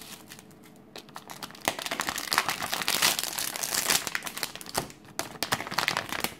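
Clear plastic packaging crinkling and rustling as hands pull a phone case and its accessories out of the bag. It is quieter for the first second and busiest from about two to five seconds in.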